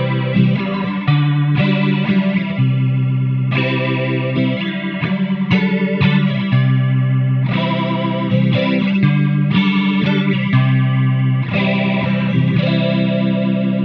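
Electric guitar chords played through a Chase Bliss Spectre analog flanger pedal set up to imitate a Leslie rotary speaker. The sustained chords change every second or two, with a swirling warble whose speed rises and falls like a Leslie switching between fast and slow.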